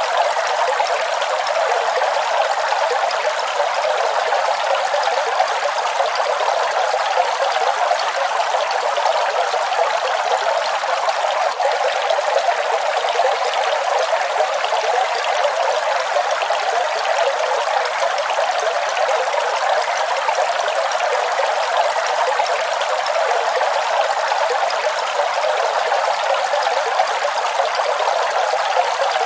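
Waterfall: a steady, unbroken rush of falling water, hissy and without any deep rumble.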